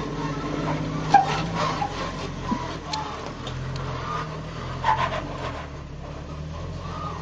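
Off-road 4x4's engine running at low revs, its pitch shifting up and down a few times, with several sharp knocks, the loudest about a second in.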